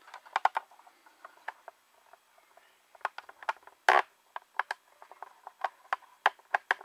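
Handling noise from a camera being repositioned and mounted: a scatter of irregular clicks and light knocks, with one louder knock about four seconds in.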